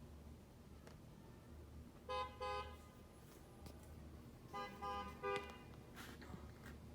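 Car horns tooting: two short toots about two seconds in, then three more a couple of seconds later, over a low steady hum.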